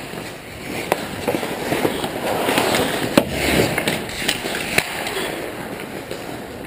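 Ice hockey play around the net: skate blades scraping on the ice and sharp clacks of sticks and puck, the loudest crack about three seconds in, amid a busy stretch of scraping.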